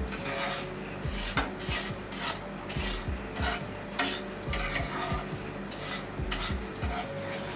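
Wooden spatula stirring sugar and water in a non-stick frying pan, scraping across the pan bottom in short strokes about two a second, with undissolved sugar grains grating under it as the syrup starts to heat.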